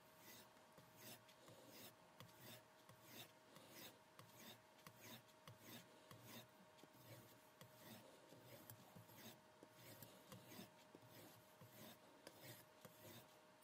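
Damascus chef knife blade drawn across a bench strop in quick, even strokes, about two to three a second, faint rubbing swishes over a low steady hum: the final stropping of the edge after the 2000-grit stone.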